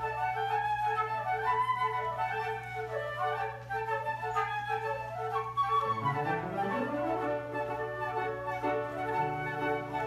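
Flute ensemble with piano playing a lively classical-style overture: flute melodies over a short note repeated in a steady pulse. About six seconds in, a low note slides upward.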